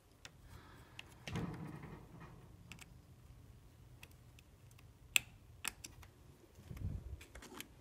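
Faint scattered clicks and taps from handling multimeter probe leads and a small adjusting tool over a 3D printer's control board, with a few sharper clicks about five seconds in. A low steady hum sits underneath.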